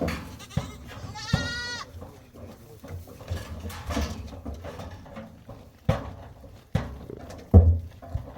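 A goat bleats once, a short call about a second in, with scattered knocks and thumps around it.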